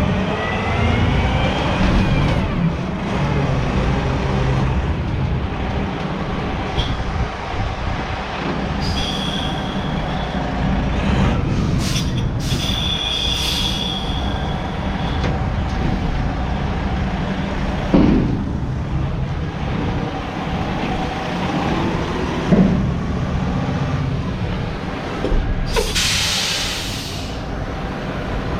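Diesel engine of a tractor-trailer end dump truck running, its pitch rising over the first couple of seconds. Brief high squeals come around the middle, and a burst of air-brake hiss comes near the end.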